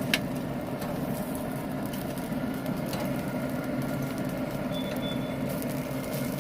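Chicken pieces being lifted off a pellet grill: a sharp click of metal just after the start and a few lighter clicks, over faint crackling and a steady low mechanical hum.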